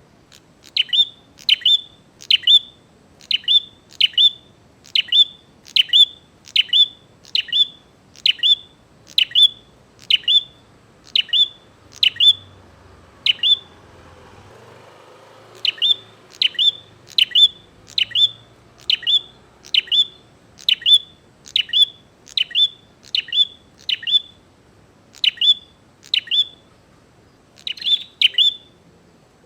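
A prinia (prenjak) calling persistently in the challenging, fight-provoking manner: sharp, high double-noted chirps repeated about one and a half times a second, with a pause of about two seconds midway.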